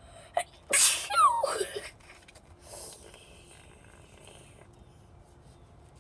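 A person sneezing once, about a second in: a sharp, loud hissing burst that trails off into a falling voiced tail.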